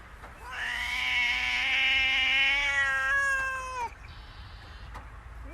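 A domestic cat giving one long, drawn-out meow of about three and a half seconds that drops in pitch as it ends; another meow begins right at the end.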